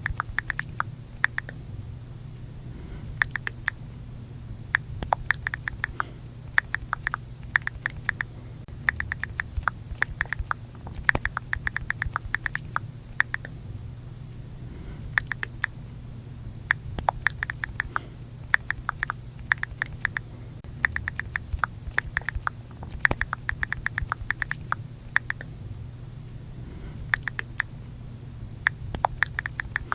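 iPhone keyboard key clicks, typed in quick runs of several taps a second with short pauses between bursts, over a low steady hum.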